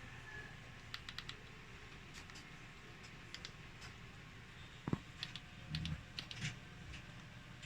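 Scattered light clicks, like buttons being pressed, some singly and some in quick pairs or threes. There is a sharper thump about five seconds in, all over a faint steady hum.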